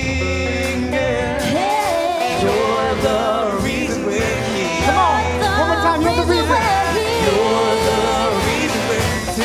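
A live worship band plays a funk arrangement of a praise song, with steady bass and wavering sung melody lines over it.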